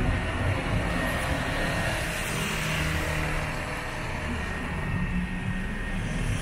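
Steady street traffic on a rain-wet road: cars and a motor scooter running by, with the hiss of tyres on wet asphalt over a low engine hum.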